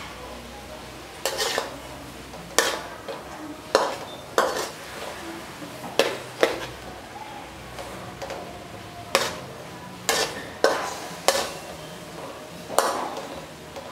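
A metal spatula scraping and clanking against a metal wok while beef is stir-fried, about a dozen sharp clanks at uneven intervals, over a faint steady sizzle of the meat frying.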